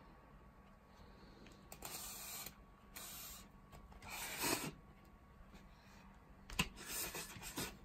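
Hand handling M1938 tanker helmets on foam head stands: a few short rubbing and brushing noises, with a sharp tap near the end followed by more rubbing.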